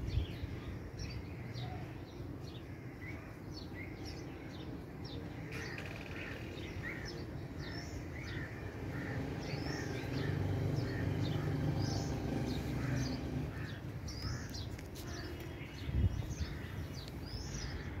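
Many small birds chirping in short, quick calls throughout, over a low steady rumble that swells for a few seconds about ten seconds in. There is a brief low thump near the end.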